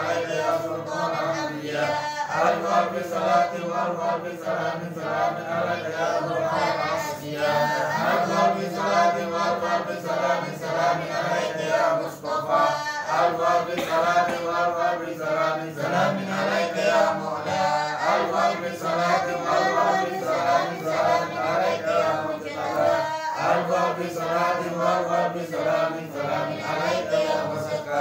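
A small group of voices chanting sholawat, Arabic devotional verses in praise of the Prophet, in unison and without instruments, in a steady repeating melody with brief breath pauses.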